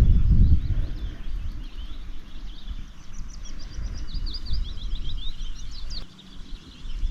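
Small songbird singing a fast run of high chirps and trills, strongest in the second half. A low rumble on the microphone at the start fades within the first second or so.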